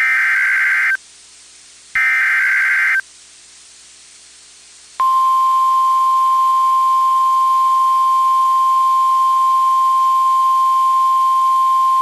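Two bursts of an Emergency Alert System SAME digital header, each a harsh warbling data tone about a second long with a second's gap between them, encoding a severe thunderstorm warning. About five seconds in, the steady single-pitch 1050 Hz attention tone begins and holds.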